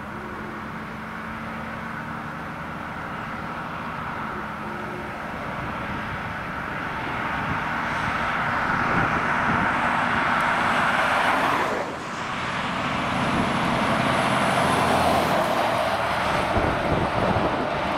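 Fire-service vehicles, a command car and a Scania roll-off truck, driving up and past, with engine and tyre noise growing louder. There is a short dip in the noise about two-thirds of the way through.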